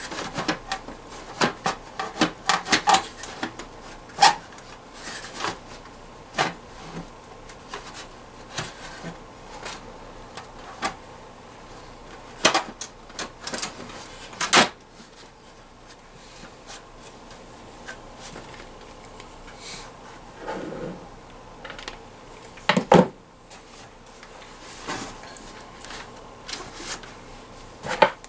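Sharp plastic clicks and knocks of the Sony FH-B50CD receiver's casing being handled and fitted back together by hand. They come in clusters with pauses between, one loud knock standing out about two-thirds of the way in.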